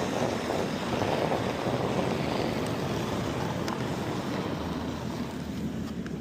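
Granite curling stone sliding down the ice with a steady rumble that fades slightly toward the end.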